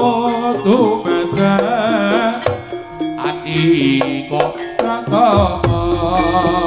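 Live jaranan music from a Javanese gamelan ensemble: kendang hand drums beating over ringing gongs and metal percussion, with a wavering melodic line carried on top.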